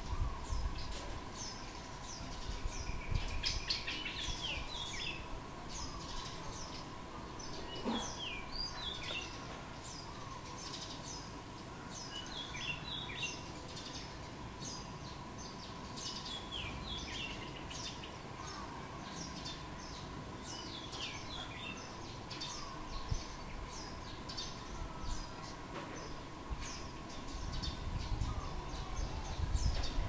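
Small birds chirping: many short, high chirps throughout, with busier runs of song a few times. Under them runs a steady thin high tone, and a low rumble comes in near the end.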